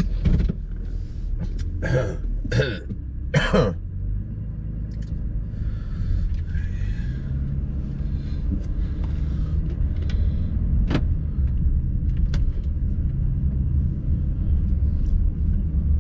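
Steady low road and engine rumble of a car driving, heard from inside the cabin. Three short loud bursts in the first few seconds, and a single sharp click about eleven seconds in.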